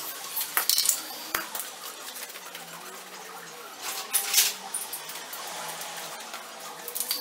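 Metal tools and loose metal parts clinking and clattering: a string of separate light metallic knocks with quieter stretches between, and a short scraping, rattling patch about four seconds in.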